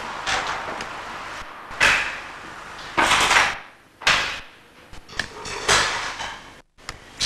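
A handful of knocks and bumps over a steady hiss, about one a second from two seconds in. The sound drops out for a moment near the end.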